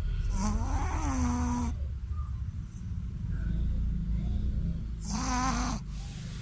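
A Shih Tzu snoring in its sleep: two long snores about four seconds apart, each with a wavering pitch and a breathy hiss.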